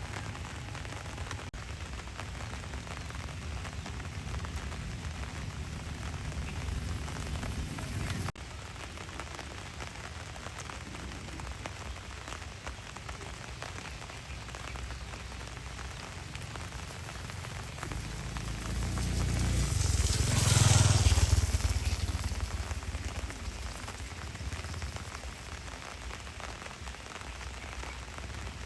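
Steady rain falling on surfaces, an even hiss. About two-thirds of the way through, a louder, deeper swell rises and fades over a few seconds.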